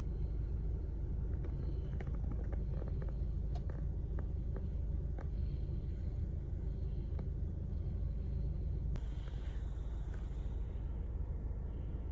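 Steady low rumble with scattered faint clicks, most of them in the first half.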